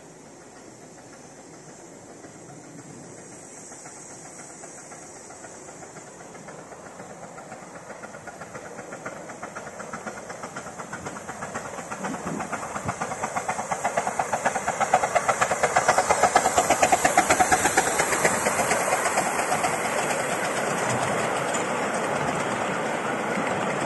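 Miniature steam locomotive approaching with a quick, regular chuff and steam hiss, growing steadily louder and passing close about two-thirds of the way in. Its carriages then roll past with a steady rumble and clickety-clack.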